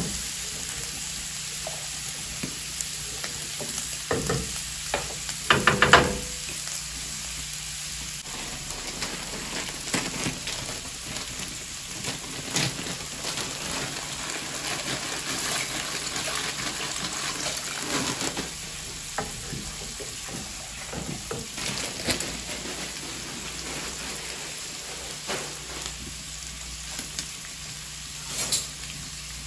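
Ground pork and onions frying with a steady sizzle on a wood-fired stove, stirred now and then with a utensil that scrapes and knocks; the loudest knocks come about five to six seconds in.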